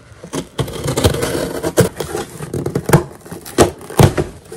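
Scissors cutting through packing tape on a cardboard shipping box, then the box being pulled open, with cardboard and paper packaging scraping and crinkling and several sharp snaps.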